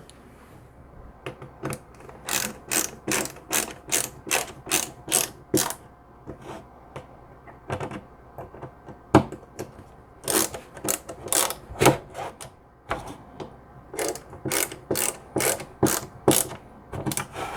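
Stubby ratcheting screwdriver's ratchet clicking as the handle is swung back and forth, about two sharp clicks a second in runs with short pauses.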